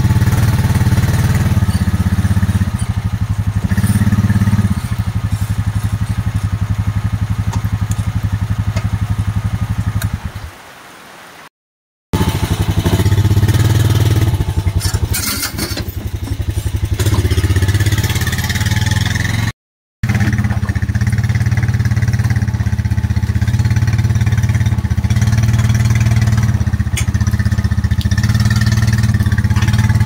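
ATV engine running as it tows a loaded log arch, its note swelling and easing with the throttle. The sound cuts out abruptly twice, briefly.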